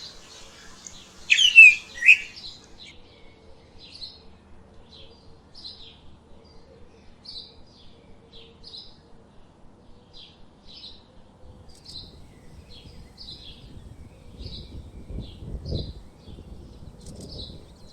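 Small birds chirping: one loud, close call about a second in, then a run of short, high chirps, once or twice a second. In the last few seconds a low, rough noise rises beneath the chirps.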